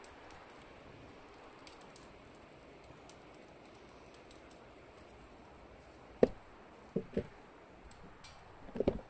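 Wood fire crackling under a hanging pot, with a faint steady hiss and scattered small ticks. A handful of sharper, louder cracks come in the last three seconds, the first the loudest.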